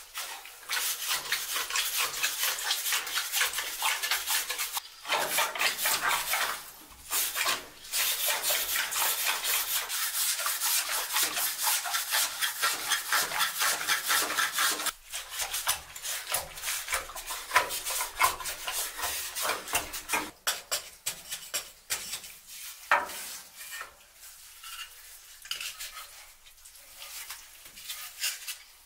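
Hand saw rasping through soft, wet stone in fast back-and-forth strokes, cutting out a block for a stone stove. Steady and loud for about the first half with two brief pauses, then quieter and more broken.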